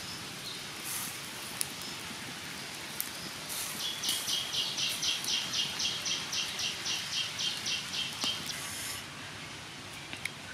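A wood fire under grilling fish, with a steady hiss and a few sharp crackles. From about four seconds in, a high rapid chirping call repeats about four times a second for some four seconds, then stops.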